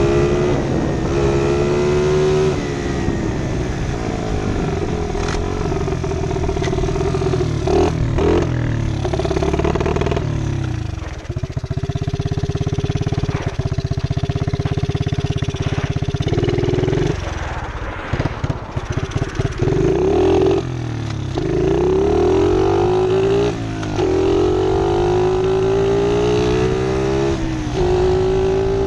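Pit bike engine revving and shifting up through the gears, each rise in pitch dropping back at a gear change. In the middle it settles to a steady low running, then revs up and accelerates through the gears again.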